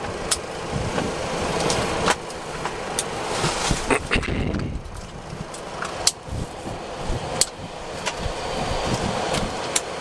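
Steady rush and rumble on the flight deck of a Boeing 737-400 with both CFM56 engines idling after start. Several sharp clicks of cockpit switches are heard being set.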